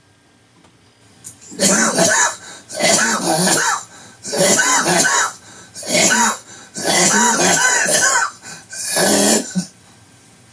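A man's dry coughing fit, loud and harsh: about six bursts of coughing, each roughly a second long with short gaps between. It is a recurring cough that brings nothing up, in a man who has lost his voice.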